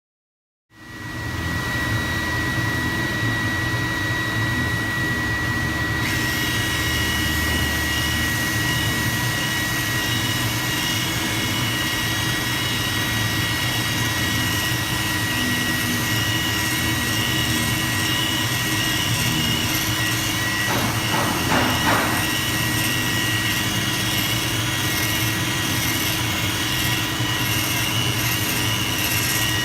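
A machine running steadily with a constant whine over a low hum, starting abruptly about a second in.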